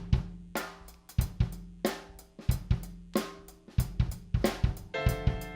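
Drum kit playing a steady beat of kick, snare and cymbal hits, about two strokes a second, over a low held bass note. Sustained chords from another instrument join near the end.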